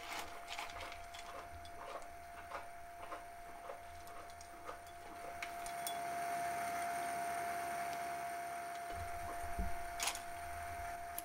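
Light clicks of small lumps of Welsh steam coal being dropped onto the fire in a 2-inch scale Burrell traction engine's firebox, about two a second at first, over a steady faint whine. A soft hiss of escaping steam rises about halfway through, then a few dull knocks and a sharp click near the end.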